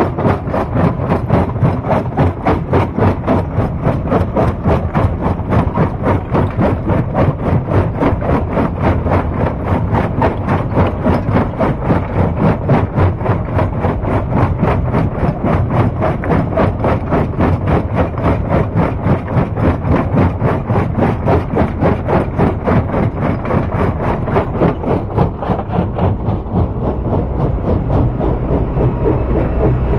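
Heavy stone-crushing machinery running, with a steady rhythmic pulse of about three beats a second.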